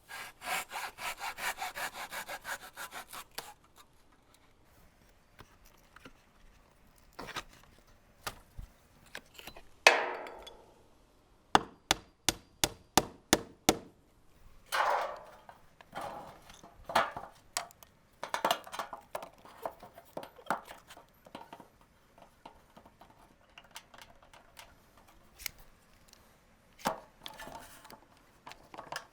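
Japanese pull saw cutting wooden trim in quick, even strokes, about four a second, for the first few seconds. Later come a loud knock and a fast run of sharp taps, with more scattered saw strokes and knocks.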